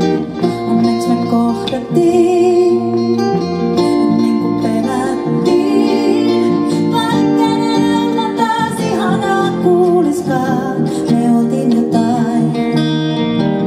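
Live pop song: a woman singing over a strummed acoustic guitar and an electric guitar accompaniment.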